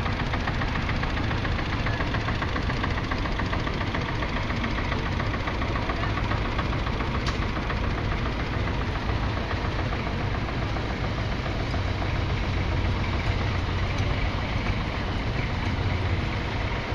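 Old tractor engine running steadily, its firing strokes giving an even, rapid chugging.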